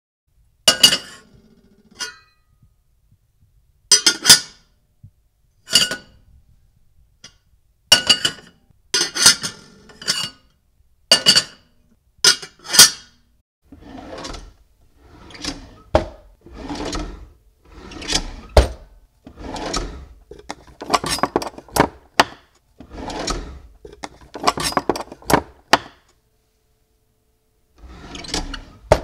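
Dishes and utensils being handled: separate sharp clinks, each with a short metallic ring, every second or two. From about halfway this turns into a run of duller scraping and knocking strokes, about one a second.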